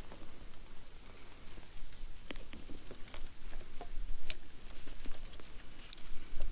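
Shuffling footsteps in snow and scattered light clicks and knocks of a shotgun being handled, with one sharper click about four seconds in.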